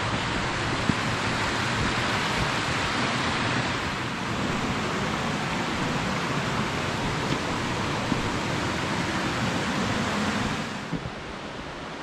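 Steady rushing of a mountain river running over rocky cascades, dropping noticeably quieter and duller about eleven seconds in.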